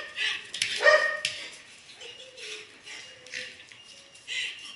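Beagle barking in play: one bark right at the start and another about a second in, followed by fainter sounds.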